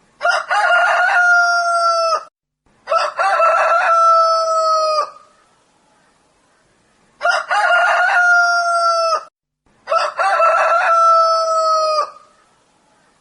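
Rooster crowing four times, in two close pairs, each crow about two seconds long. Each crow ends on a long held note that drops slightly in pitch at the end.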